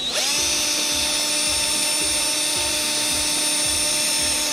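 Small electric hobby drill spinning up and running at a steady high speed, used to drill a pilot hole for a planking nail in a model ship's hull; it stops abruptly near the end.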